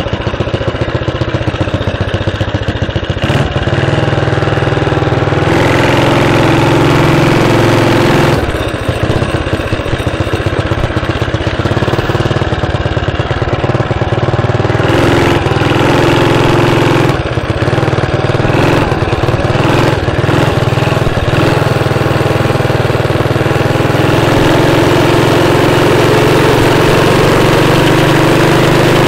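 Small petrol engine of a motorized bicycle running steadily while the bike is ridden, its note swelling and easing a few times with the throttle.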